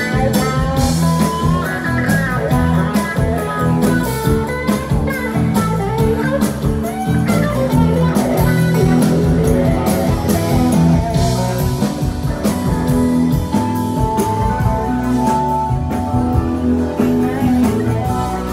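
Live band playing: electric guitar, bass guitar, keyboards and drums.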